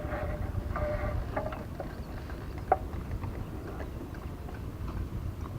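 Outdoor wind rumble on the microphone, with faint voice fragments in the first second or so and a single sharp click a little under three seconds in.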